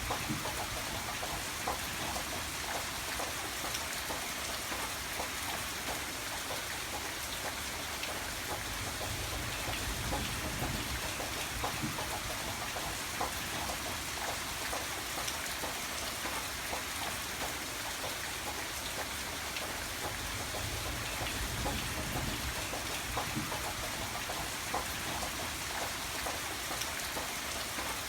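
Steady rainfall: an even hiss of rain with many individual drops ticking on a surface.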